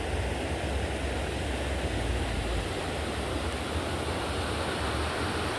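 Steady rushing of a flood-swollen river, with a low rumble of wind buffeting the microphone.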